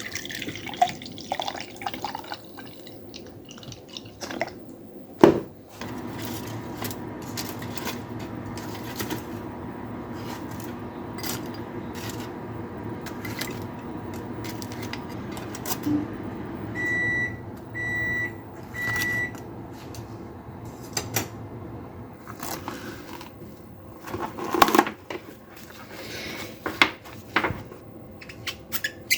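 Microwave oven running with a steady hum that stops about halfway through, followed by three short beeps. Light clicks and kitchenware clatter come before and after.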